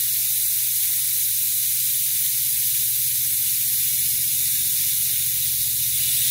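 Air-powered vacuum brake bleeder hissing steadily while it draws old brake fluid and air out of a rear brake wheel cylinder through the opened bleeder screw.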